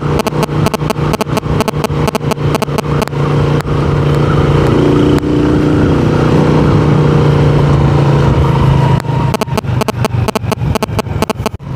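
Motorcycle engine running steadily while riding, with rapid crackling over it for the first few seconds and again near the end.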